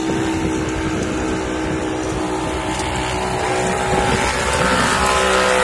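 Side-by-side UTV engine running at a steady pitch, then revving higher and louder near the end.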